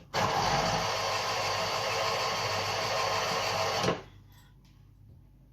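A small electric kitchen appliance motor runs steadily for about four seconds, switching on and off abruptly.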